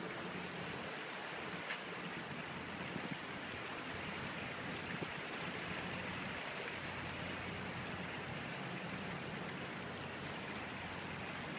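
Steady rush of river water along a moving vessel's hull, with the low, even drone of the tugboat's diesel engine underneath.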